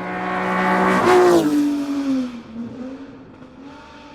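Ferrari 250 GTO's V12 engine running at speed. It is loudest about a second in, then its pitch drops and it fades to a quieter, steady note.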